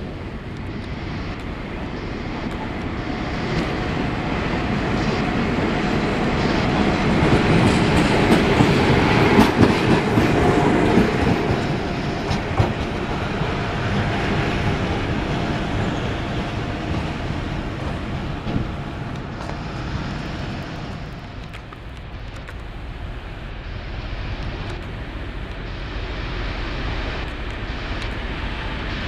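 A ČD class 754 'brejlovec' diesel-electric locomotive running light past, its diesel engine and wheels clattering over the rail joints, loudest about a third of the way in. Near the end a second class 754 diesel approaches hauling a passenger train, its engine running steadily.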